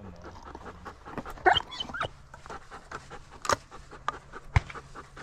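A retrieving dog panting close by, in quick breathy bursts, with scattered short clicks and rustles.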